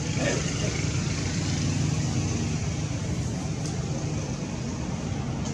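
Steady low rumble of distant road traffic with a light hiss above it, with a faint short rising squeak just after the start.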